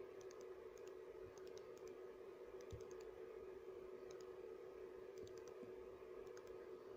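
Near silence: a steady low hum with faint, short high-pitched clicks that come in small clusters of two to four, scattered irregularly.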